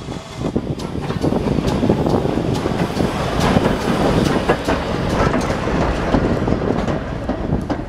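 Great Western steam locomotive and tender rolling past at close range, wheels clattering over the rail joints with irregular sharp clicks.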